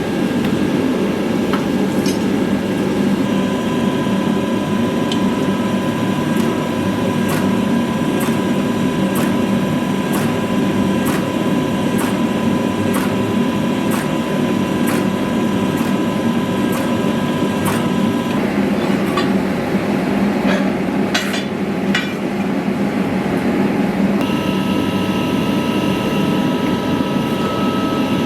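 Hammer blows on a sword blade being forged, struck at about one a second for some ten seconds, with a few more strikes later, over a steady loud rushing noise.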